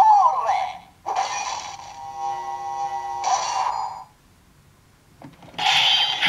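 Electronic sound effects from a Kamen Rider Gaim lock seed toy in its transformation belt. A recorded voice call ends about a second in. A steady synth tone with several held notes follows, then a short burst. After a pause of about a second and a half, the sounds start again loudly near the end.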